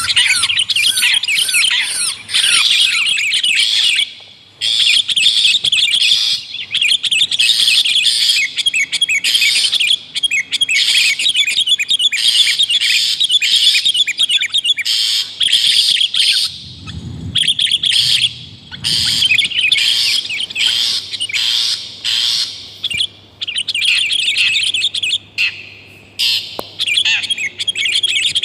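Bird-lure recording of long-tailed shrike chattering mixed with sooty-headed bulbul song: loud, rapid, dense calls, broken only by short gaps.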